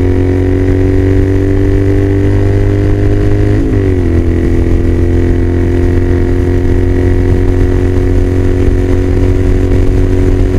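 2015 Triumph Scrambler 900's air-cooled parallel-twin engine running loud and steady under way at highway speed. Its pitch creeps up slowly, with a brief dip about three and a half seconds in.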